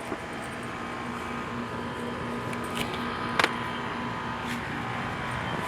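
Trane XE1000 heat pump outdoor unit running: a steady hum with a low tone, and a sharp click about three and a half seconds in.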